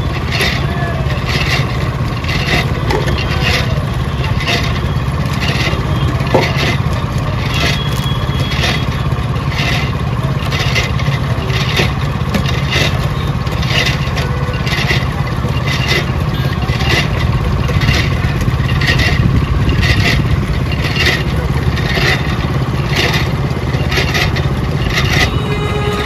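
Motor-driven sugarcane juice crusher running, its steel rollers and gears turning with a steady low hum and a sharp clack about once a second.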